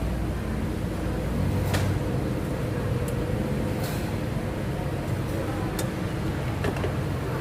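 Steady low hum of a running engine, with a few short light clicks.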